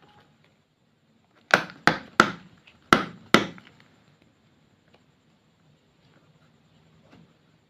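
Five sharp knocks in quick succession over about two seconds, each dying away quickly, with faint handling noise around them.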